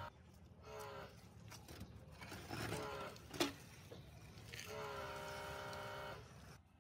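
Small electric motor of a handheld power tool whirring steadily in two bursts, a short one near the start and a longer one of about a second and a half past the middle. A single sharp click comes between them.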